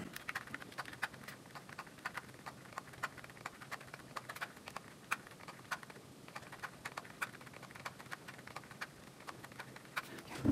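Fingers tapping the keys of a small handheld calculator: a fast, irregular run of light clicks.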